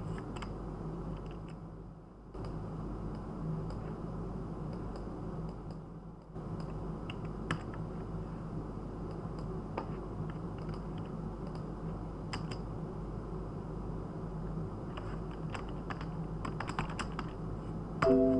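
Scattered computer keyboard and mouse clicks over a steady low hum, with a quick run of typing near the end, followed by a short electronic tone.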